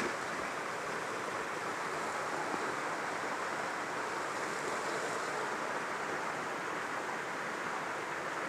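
Steady rushing of a stream running over rocks.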